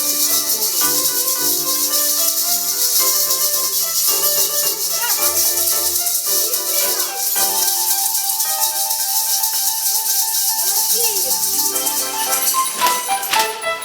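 Children shaking and rustling sheets of paper as a paper noise band, a dense steady rustle, played along with recorded music that carries a melody. Near the end the rustle breaks into separate sharp strokes.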